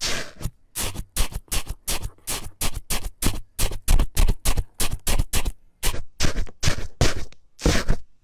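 A small tube pressed again and again into a tray of rainbow-dyed bubbly foam, each press giving a short crunchy squish, several a second.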